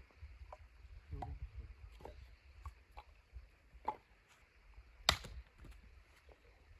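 Irregular sharp knocks or chops, a few faint ones and one much louder about five seconds in, over a steady low rumble.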